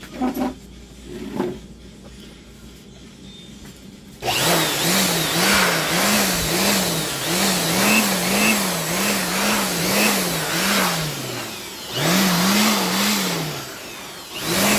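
A handheld electric dust blower runs, blowing dust out of the opened stereo unit. Its motor pitch wavers up and down about twice a second, and it cuts out briefly twice near the end. A couple of light handling knocks come before it starts, about four seconds in.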